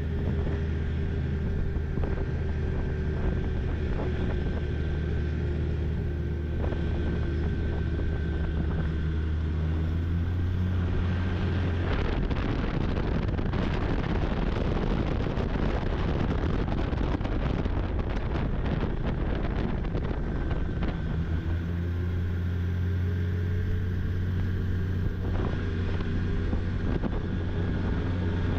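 Snowmobile engine running under way, with a steady low drone for about the first twelve seconds. It turns rougher and busier for about ten seconds, then settles back to the steady drone.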